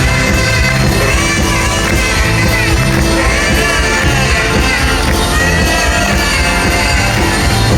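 Live rock concert: a full band playing loudly with a lead singer's voice over it.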